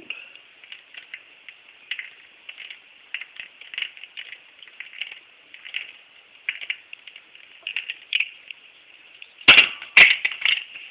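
Irregular light clicking and crackling of ice cubes in a plastic cup, with two loud sharp knocks near the end.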